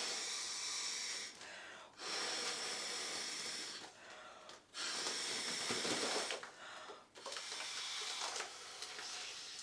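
A person blowing air by mouth through a drinking straw into a foil balloon's valve to inflate it: four long airy blows with short breaks for breath between them.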